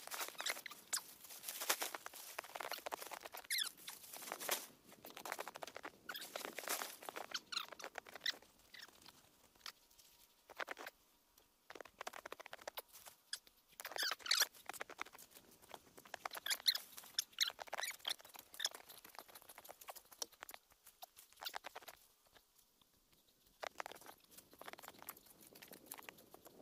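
Tent fabric crackling and rustling as it is shaken out and spread on the snow, mixed with footsteps crunching in snow; the crackles come in irregular clusters with a few quieter gaps.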